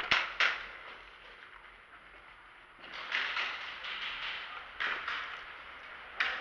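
Airsoft guns firing: two sharp snaps just after the start, another about five seconds in and one near the end, with stretches of rustling, scuffing noise between them.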